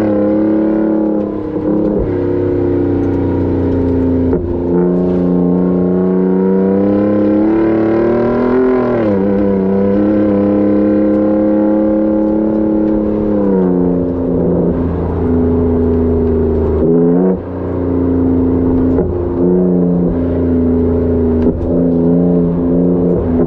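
Exhaust note of a 2018 Ford Raptor's twin-turbo 3.5-litre EcoBoost V6 through a Corsa Xtreme exhaust under way, the pitch rising and falling with throttle and gear changes, with a brief drop as the throttle lifts about seventeen seconds in.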